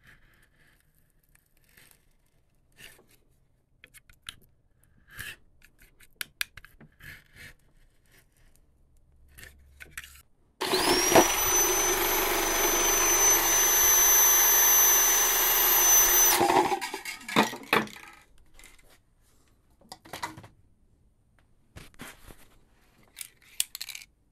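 Handheld power tool spinning up with a quickly rising whine, then running for about six seconds with a steady high whine over a scrubbing noise before it stops, as the weathered finish of a floor jack is cleaned up. Light clicks and knocks of handling come before and after it.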